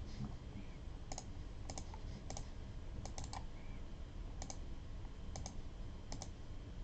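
Faint, scattered clicks of a computer mouse and keyboard, about one or two a second and often in quick pairs.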